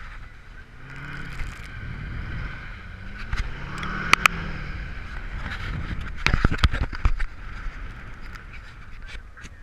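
Duramax 6.6-litre V8 turbodiesel engine running, its revs rising and falling twice, with sharp knocks and clatter about four seconds in and again a couple of seconds later.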